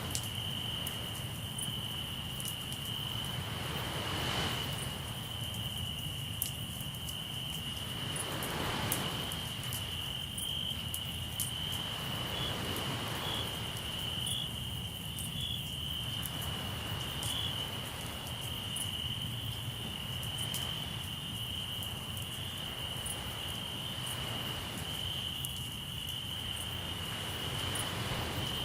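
Crickets chirping in a steady, continuous high trill, over the hiss of waves washing ashore that swells every few seconds, with scattered small pops of a campfire crackling.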